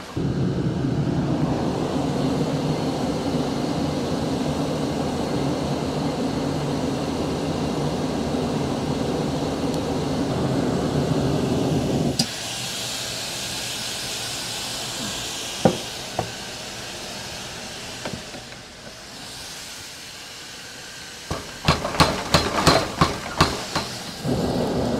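Forge machinery running with a steady low rumble and hum. After a cut comes the hissing roar of a charcoal forge fire under a forced-air blast. Near the end comes a quick run of sharp hammer blows on hot steel, several a second.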